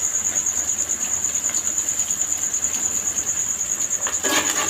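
A cricket trilling, a steady high pulsing chirr with no break. Near the end a metal spatula scrapes briefly in the frying pan.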